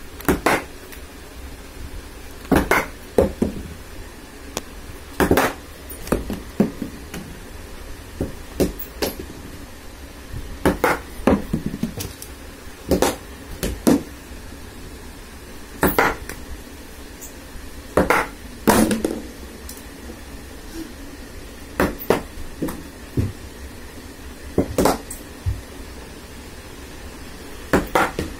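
Hard leather cricket ball bouncing on a tiled floor and striking a wooden cricket bat during batting practice: about twenty sharp knocks, often in pairs a fraction of a second apart, repeating every couple of seconds, with a short ring in a small room.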